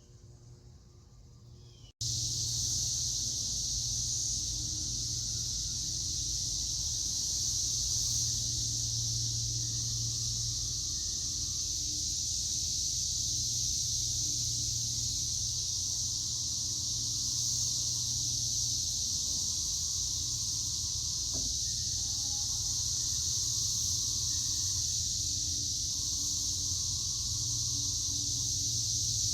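Steady, loud chorus of summer insects making a continuous high hiss, over a low steady hum.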